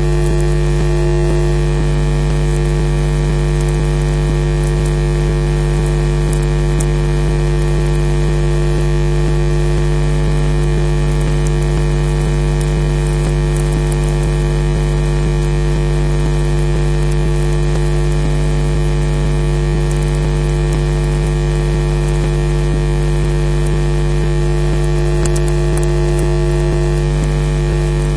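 Loud, steady electrical mains hum and buzz in a nest camera's audio feed, with hiss and a few faint crackles.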